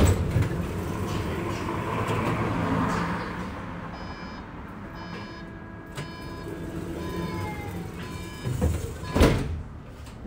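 Inside a Bombardier Flexity tram: rolling and running noise with several steady electric whining tones from the traction equipment, some falling in pitch about seven seconds in. A sharp knock comes right at the start and a louder thump about nine seconds in.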